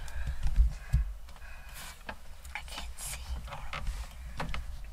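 Rustling, soft knocks and clicks from people shifting and handling gear inside a wooden deer stand, with faint whispering.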